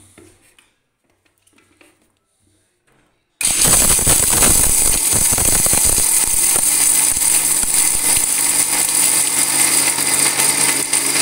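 Electric mixer-grinder with a steel jar running at full speed, grinding roasted dry fruits into powder. It starts suddenly about three seconds in, after a little light handling of the jar, and then runs steadily.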